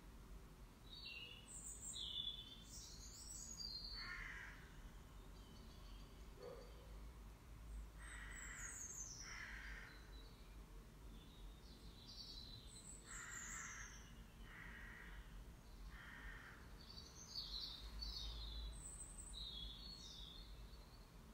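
Faint bird calls: short calls repeated every few seconds, often two in a row, with clusters of high chirps between them.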